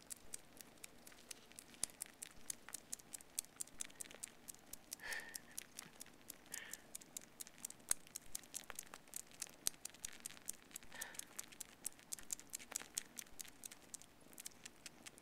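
Siamese kittens suckling on a plush toy squirrel: a faint, irregular run of small wet clicks and smacks, several a second, with soft rustling of the fabric.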